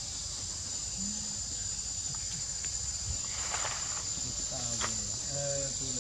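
A steady, high-pitched chorus of insects drones without a break. A few soft rustles of leaves come near the middle.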